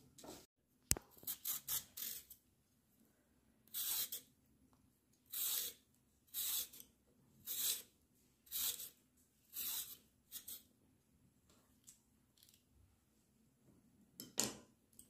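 Vegetable peeler scraping down a white radish (mooli), a short rasping stroke about once a second. A sharp click comes about a second in.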